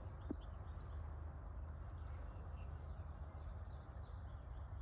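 Small birds chirping faintly and intermittently over a steady low background rumble.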